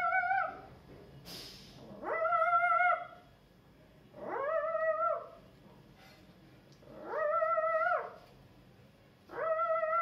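A person's voice imitating an animal call: long, drawn-out cries, each rising, held level, then falling, repeated five times about two seconds apart.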